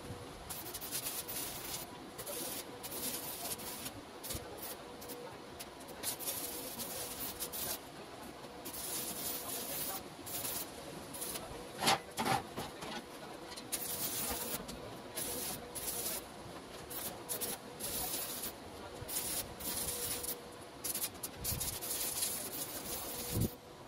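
Electric welding arc crackling and hissing in short irregular runs, stopping and starting, while a steel-tube frame is tack-welded, over a faint steady hum. A brief knock about halfway through.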